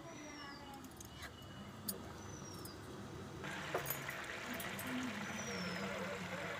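Rice and water simmering in an open pan on a gas stove: a soft bubbling hiss that comes in about three and a half seconds in. A small bird chirps three times, each a short falling note.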